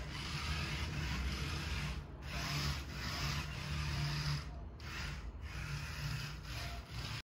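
Small DC gear motors of an Arduino robot car running, with a low hum and a rough rolling scrape, dipping briefly a few times. It cuts off suddenly near the end.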